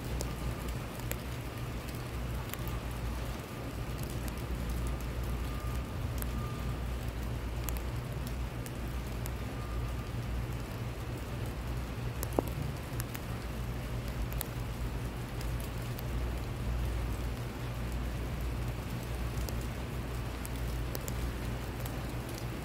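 Rain falling on a concrete pavement, with many individual drops ticking over a steady hiss as the first drops of a shower darken the dry slabs. A steady low rumble runs underneath.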